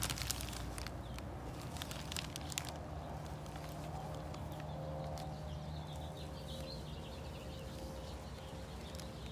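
Thin plastic wrapping crinkling in a few short rustles as a graphite crucible is lifted out of it, over a steady low background hum. The rustling stops about three seconds in.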